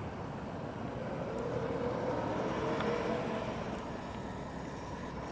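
BMW E60 M5's V10 engine running at low speed as the car rolls along, its note rising a little and easing off again about three seconds in.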